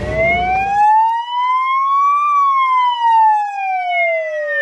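Wail-type fire truck siren sound effect: a smooth tone that rises for about two seconds, falls for about two and a half, and then starts rising again. A low truck engine rumble cuts off about a second in.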